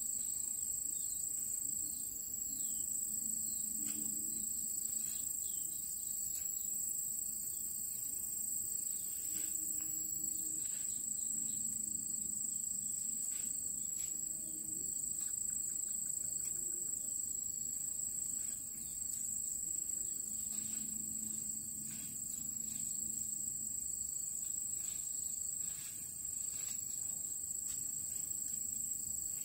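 Background chorus of insects such as crickets, a continuous high-pitched trill that holds steady throughout.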